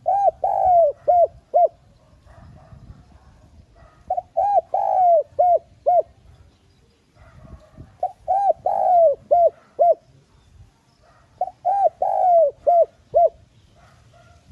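Male spotted dove cooing its song: four phrases of five or six short hollow coos, a few seconds apart, each with one longer note that falls in pitch near the middle.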